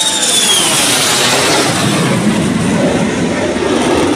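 Two fighter jets passing low overhead with a loud jet roar. A high whine drops in pitch within the first second as they go by.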